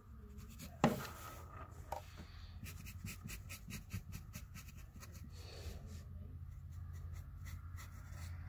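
Copic marker tip scratching on a fabric tote bag in many quick short strokes, colouring in a small area. A single sharp click about a second in is the loudest sound.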